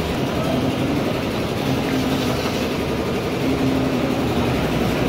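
Steady street noise of a busy market road, mostly vehicle engines running, with a few faint short tones mixed in.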